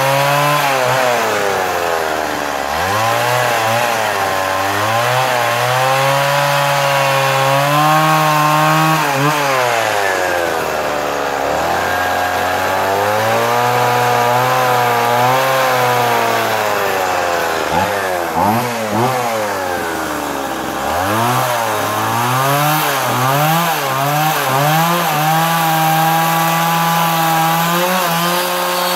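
Stihl MS 170 two-stroke chainsaw carving into a wooden post, running at high revs that waver as the chain bites. It drops back toward idle about three times and revs up again.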